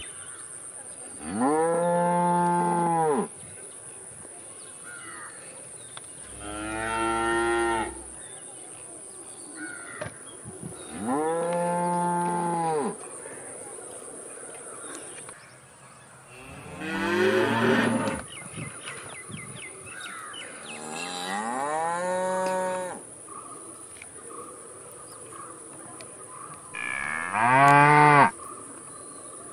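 Cattle mooing: six long moos spaced a few seconds apart, each rising and then falling in pitch, the loudest near the end.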